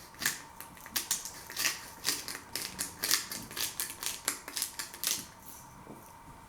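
Black pepper being ground from a hand pepper mill: a run of gritty crunching clicks, three or four a second, stopping about five seconds in.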